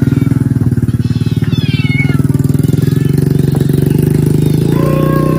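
A small engine running steadily with a fast, even pulse, with kittens meowing over it: a quick run of cries about two seconds in and a longer meow near the end.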